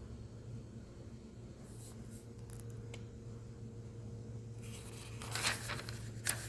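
Paper pages of a hymnal being handled and turned: faint ticks, then a rustle about five seconds in and a sharp flick near the end, over a low steady hum.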